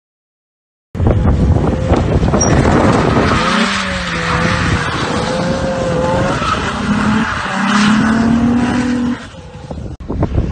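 Infiniti G coupe's V6 engine revving hard during a drift on wet pavement, its pitch wavering up and down as the throttle is worked, over the hiss of tyres sliding and spraying through water. It comes in abruptly about a second in and falls away shortly before the end as the car pulls off.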